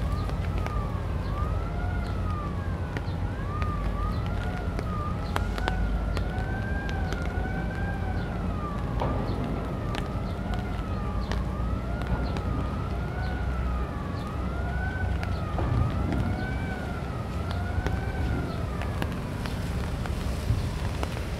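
A wailing siren, its pitch sweeping up and down about every second and a half, stopping near the end, over a steady low rumble.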